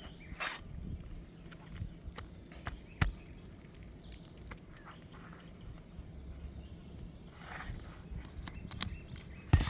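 Scattered light clicks, taps and scrapes of brittle asphalt roof shingles being handled and lifted, over a low steady outdoor rumble.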